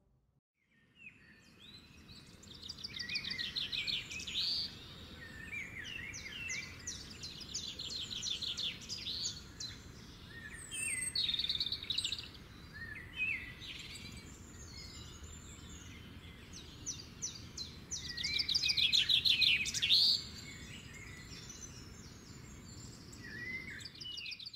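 Birdsong: rapid high trills and chirps in repeated bouts, loudest a few seconds before the end, over a steady low background noise.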